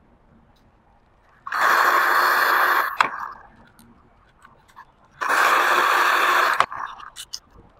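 Handheld hairdryer blowing in two bursts of about a second and a half each, each ending in a sharp click, heating thin plastic railings to soften them. A few light clicks follow near the end.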